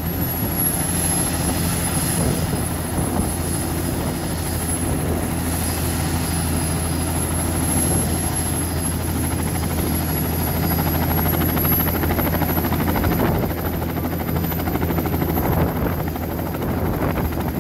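Bell 206 JetRanger helicopter running on the pad at full power just before lift-off: its turbine and spinning rotors make a steady low drone with a thin high whine over it.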